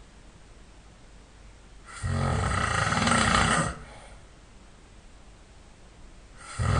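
A person snoring loudly in sleep. One long, rasping snore about two seconds in, a quiet breath gap, then the next snore starting near the end.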